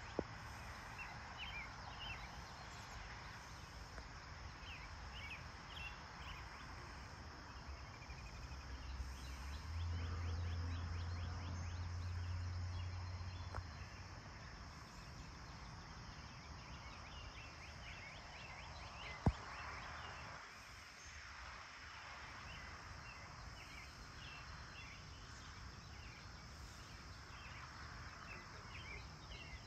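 Birds chirping at dawn over a steady high insect drone. A low hum swells for a few seconds about a third of the way in, and a single sharp click comes about two thirds through.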